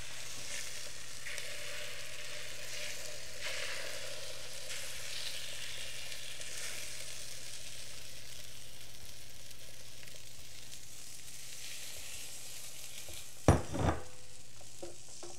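Chaffle batter of egg and shredded mozzarella sizzling steadily on the hot plates of a preheated electric waffle maker, while a silicone spatula scrapes it out of a glass bowl. Near the end, a knock and a smaller one as the glass bowl is set down on the counter.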